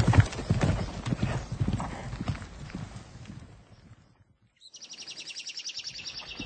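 A horse's hooves clip-clopping, fading away over the first four seconds. After a brief hush, a high, fast, even chirring trill begins near the end.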